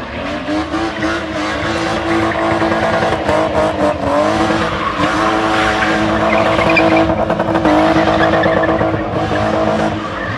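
BMW E30 3 Series held at high revs while its rear tyres spin and squeal on the paving during a car-spinning routine. The engine note stays mostly steady, with a few brief dips in revs.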